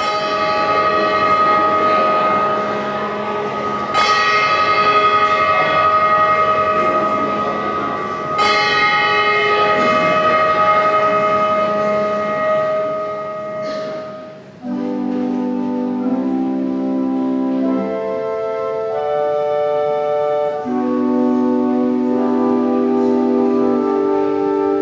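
Handbells rung together: three strikes about four seconds apart, each chord ringing on long. About fifteen seconds in, a church organ comes in playing sustained chords.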